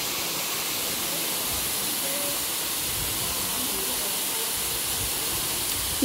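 A tall waterfall plunging into its pool: a steady, even rush of falling water with a strong high hiss.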